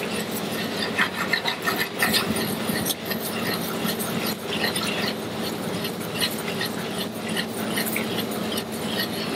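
Carrots glazing in butter in a small stainless-steel saucepan as it is swirled on the hob: the butter sizzles and crackles while the carrots slide and scrape around the pan, over a steady low hum.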